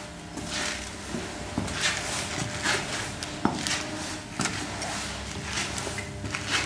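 Leather shoes squeaking and creaking at each step as a man walks in them, steps a little under a second apart. The shoemaker puts the squeak down to the leather or lining rubbing against the sole.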